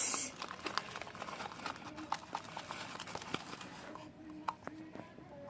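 Glue-and-detergent slime being stirred and mixed by hand in a container: faint, irregular sticky clicks and small squelches as the mixture starts to come together.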